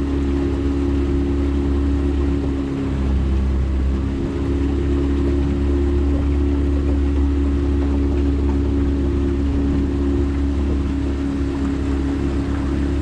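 9.9-horsepower outboard motor running at a steady speed, pushing a jon boat along: a continuous low drone with a steady hum.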